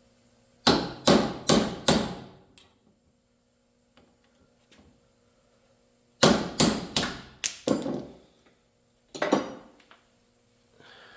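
Hammer blows in quick runs: four sharp strikes, a pause of about four seconds, then five more, and a single strike near the end, each with a short ring.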